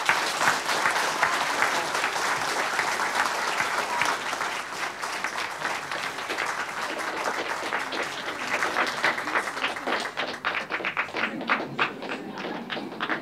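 Audience applauding. The dense applause thins out into scattered individual claps near the end.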